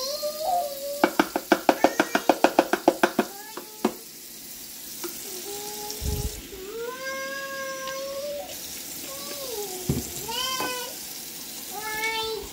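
A cat meowing again and again, some calls drawn out and bending in pitch, over a kitchen tap running into a stainless steel sink. About a second in, a fast run of about a dozen sharp knocks lasts a couple of seconds.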